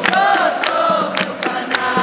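Capoeira roda music: a group singing a chant, one long wavering sung line in the first second and a half, over rhythmic handclaps.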